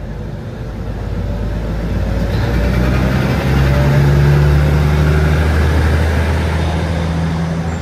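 R77 diesel work locomotive of the New York subway passing close by at slow speed. Its engine gives a low steady note that grows louder as it comes past, loudest about four seconds in, over the noise of its wheels on the rails.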